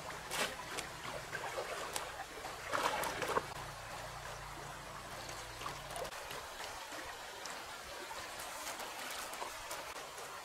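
Water trickling, with irregular small splashes; the biggest splash comes about three seconds in.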